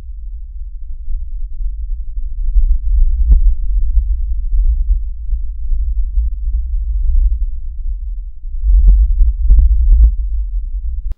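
Low, gusting rumble of wind buffeting the microphone. There is a sharp knock about three seconds in and a quick cluster of three or four knocks near the end.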